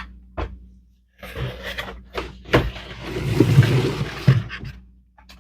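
Lego advent calendar packaging being handled and opened: a sharp snap, then crinkling and rustling with several sharp snaps, loudest in the middle.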